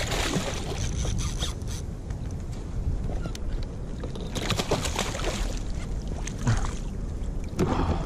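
Sea water splashing and sloshing against a fishing kayak, coming in repeated surges every second or two over a steady low rumble.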